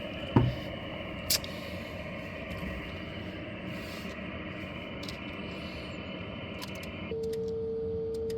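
Receiver static hiss from an amateur radio transceiver's speaker tuned to a quiet 6-metre band, with two sharp clicks near the start. About seven seconds in, a steady single tone starts and holds: the transceiver's tune carrier, keyed to match the antenna.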